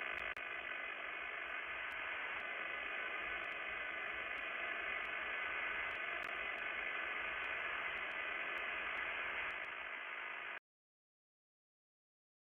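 Steady radio-static-like hiss with faint held tones and light ticking, given as the sonified 'sound' of one of Earth's quasi-satellites. It cuts off suddenly about ten and a half seconds in, leaving silence.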